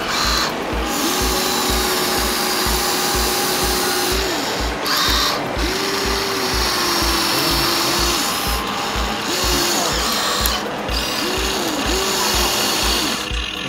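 Electric motors of a Huina remote-control toy excavator whining as its tracks drive it over a sand pile, coming in several spells with the pitch dipping and rising as it starts and stops. A steady music beat runs underneath.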